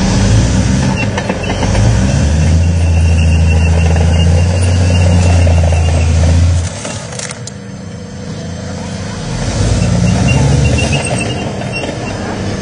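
Engine of a tracked armoured vehicle, a tank-chassis recovery vehicle, running under load as it moves, a heavy low drone. The drone drops off abruptly about six and a half seconds in and builds again about ten seconds in.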